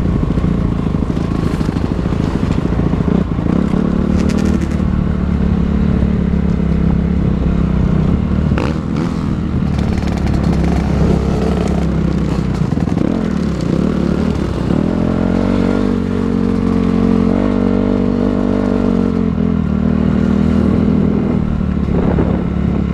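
Motocross dirt bike engines racing, revving hard and falling back again and again as the bikes accelerate and shift. A short sharp knock sounds about nine seconds in.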